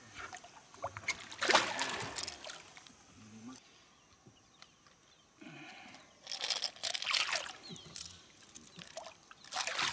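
Hooked fish thrashing at the water's surface beside a boat, splashing in three short bursts: about a second and a half in, around six to seven seconds in, and again near the end.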